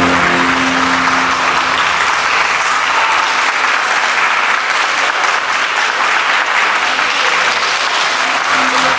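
Audience applauding, with the tail of the routine's music fading out in the first second or two.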